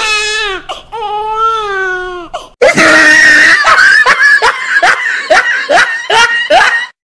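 Exaggerated human crying sound: a long, wavering wail, then loud quick vocal bursts about three a second, cut off abruptly near the end.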